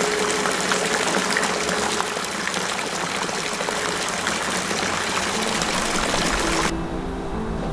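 Steady splashing of running water, full of small splashes, cutting off abruptly near the end as music comes back in.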